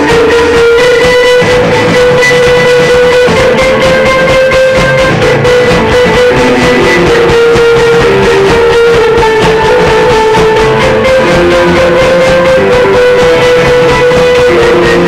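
Loud live jam music led by a guitar playing long held melody notes that change pitch every second or so, over a dense, busy backing.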